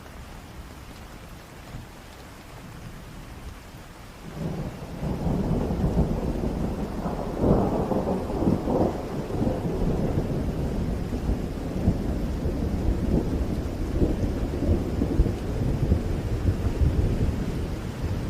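Heavy rain falling steadily. About four seconds in a roll of thunder begins, peaks a few seconds later with its loudest crackling rumble, then keeps rumbling on over the rain.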